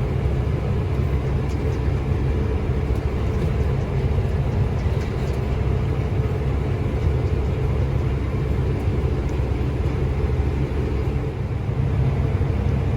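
Combine harvester running steadily, a constant low engine and machinery rumble with no change in speed.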